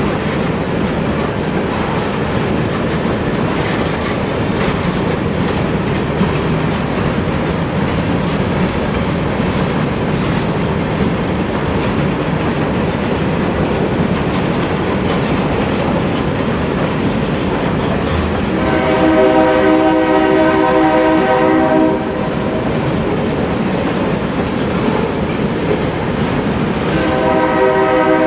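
Norfolk Southern freight train running by with a steady rumble and wheel clatter. The lead GE diesel locomotive's multi-chime air horn sounds one blast of about three seconds two-thirds of the way through, and a second blast begins near the end.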